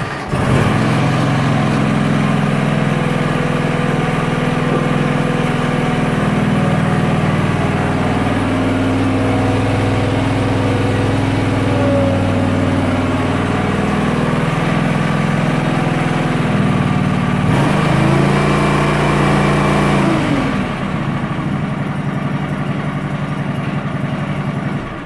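John Deere 425 garden tractor's freshly rebuilt Kawasaki V-twin engine running steadily just after starting. It revs up for a couple of seconds, then drops back to a steady run.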